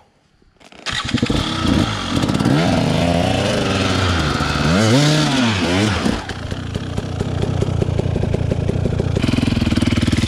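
Off-road enduro motorcycle engine that cuts in suddenly about a second in. It revs up and back down twice, then runs on steadily with its pitch slowly climbing near the end.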